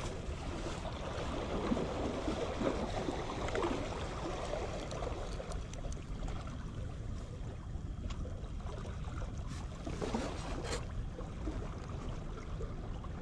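Steady low rumble of wind and sea surf on the microphone, with close rustling and a few faint clicks from hands handling the bait and line.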